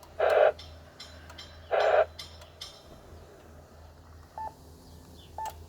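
Amateur radio transceiver noises: two short bursts of hiss about a second and a half apart, then two brief electronic key beeps near the end, over a low steady hum.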